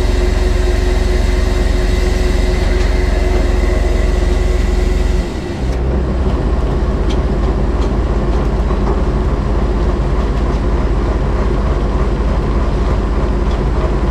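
Truck engine running to drive the loader crane's hydraulics while a cable drum hangs from the hook. It makes a loud, steady drone, and its note drops and shifts about five seconds in.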